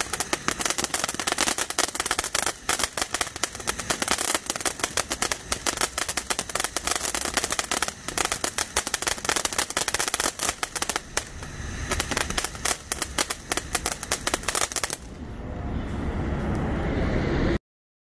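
Firework fountain (Top Gun "Flush It!") burning with dense, rapid crackling and popping. About fifteen seconds in, the crackle gives way to a rising rushing noise that cuts off suddenly.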